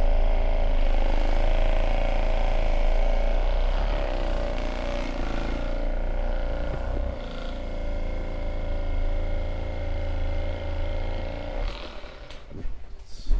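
Handheld electric massage tool running steadily on the body for fascial release, a motor hum with a slightly wavering pitch that starts abruptly and dies away about twelve seconds in.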